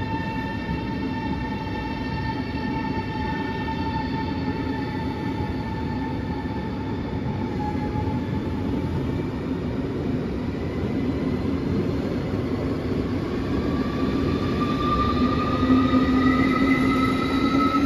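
SBB ETR610 electric tilting train pulling out of the station. Its traction equipment gives a steady whine, and from about two-thirds of the way in a second whine rises in pitch as the train gathers speed, over the rumble of its wheels. The whole sound grows louder near the end.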